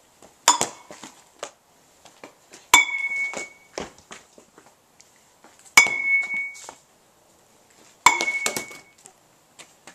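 A child's small metal bat striking a ball off a batting tee four times, about every two to three seconds, each hit a sharp knock with a short metallic ping, followed by smaller knocks.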